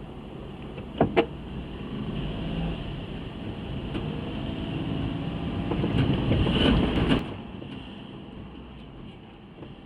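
Road traffic at a railway level crossing: two quick, sharp thumps about a second in, then a louder vehicle builds up and passes with more knocks, its noise dropping away sharply about seven seconds in.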